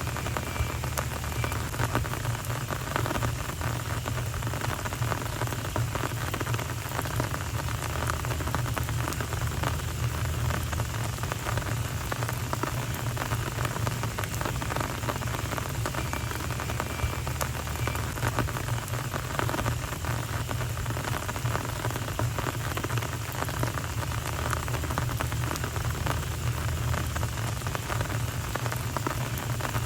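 Steady rain falling on a street surface, an even patter of many drops, with a low steady hum underneath.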